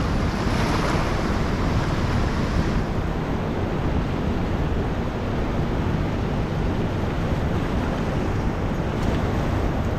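Steady wind buffeting the microphone over rushing river water, with a brighter hiss in the first three seconds.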